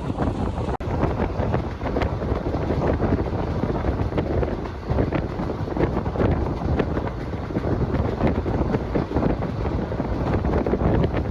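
Wind buffeting the microphone over the steady running noise of a moving passenger train, with irregular light clicks and rattles from the wheels and carriage.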